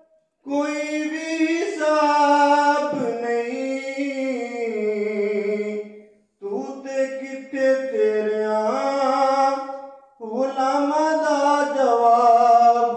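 A man singing a naat, an Urdu devotional poem in praise of the Prophet, solo and unaccompanied, in three long melodic phrases with drawn-out notes that glide up and down, and a short breath between phrases.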